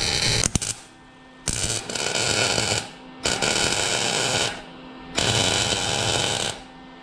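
Wire-feed welder arc crackling on an exhaust header pipe in four bursts of about a second each, with short pauses between: the pipe being stitch-welded.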